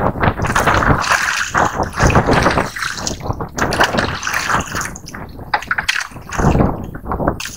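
Sea water splashing and sloshing in loud, irregular bursts.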